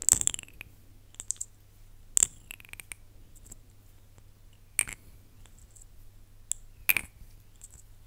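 Close-miked mouth sounds: four loud lip smacks or kisses, about two seconds apart, with softer wet clicks of the lips in between.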